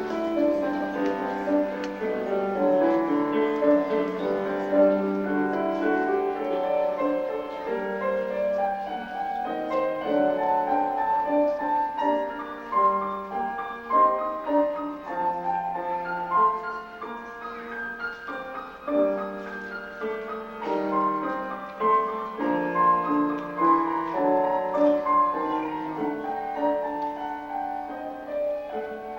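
Piano music, a stream of flowing notes.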